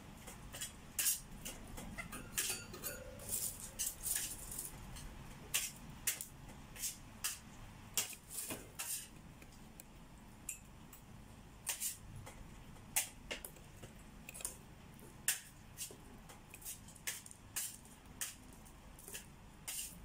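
Light metallic clicks and taps of a budgerigar's beak and claws on a wire bird cage as it climbs and clings to the bars, irregular and coming in loose clusters.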